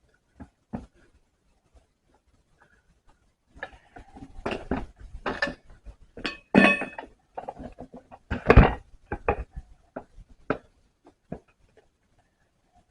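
Irregular metal clanks, knocks and scrapes of a tire tool and rubber against the wheel rim as a tube-type tire is worked onto a Polaris Ranger wheel by hand. There is a quiet stretch, then a busier run of knocks from a few seconds in until near the end.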